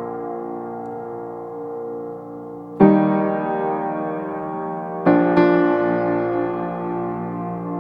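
Background piano music: slow, sustained chords, a new one struck about three seconds in and another about five seconds in, each left to ring and fade.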